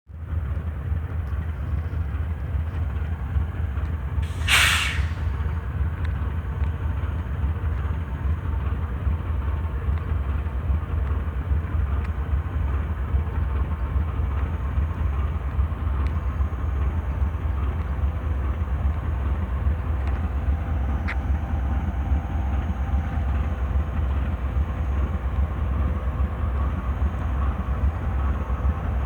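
TE33A diesel locomotive's twelve-cylinder GE GEVO-12 diesel engine running with a steady deep bass drone. About four and a half seconds in, a single short, sharp hiss of released air cuts through: the locomotive's 'sneeze'.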